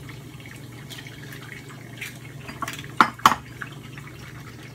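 Chicken eggs being cracked against the rim of a stainless steel frying pan: two sharp taps about three seconds in, with a few lighter taps before. Light sizzling of eggs frying in hot oil runs underneath.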